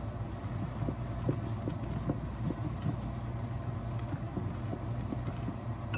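A spoon stirring melted marshmallows in a bowl, making irregular soft knocks, over the steady hum of a running microwave oven.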